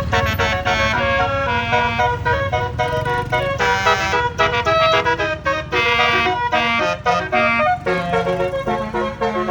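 Indonesian bus 'telolet basuri' musical air horn playing a fast melody, with its notes changing several times a second, over the low rumble of the bus.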